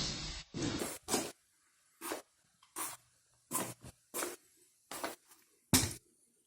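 A series of faint, short knocks, about one every three-quarters of a second, eight in all.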